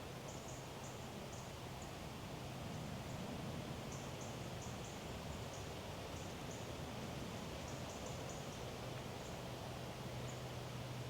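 Woodland ambience: small birds giving many short, very high-pitched chirps at irregular intervals over a steady background hiss with a low hum underneath.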